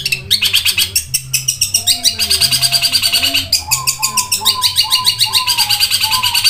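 Long-tailed shrike (cendet) singing: a fast, unbroken chatter of short high notes, about eight to ten a second. A lower, wavering whistled note runs beneath it from about two seconds in.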